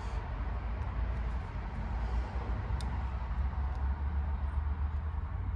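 Steady low rumble of outdoor background noise, with a couple of faint clicks as wire spade connectors are handled on a capacitor's terminals.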